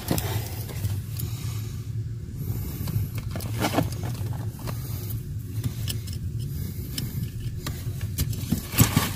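Plastic wiring-harness connector and loose wires handled and pushed into a socket under a pickup's dashboard, with scrapes and scattered clicks and a couple of sharper clicks near the end as the plug seats. A steady low hum runs underneath.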